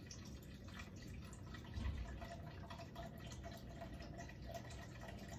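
Malibu coconut rum poured from its bottle, a faint steady trickle of liquid, with a dull low bump about two seconds in.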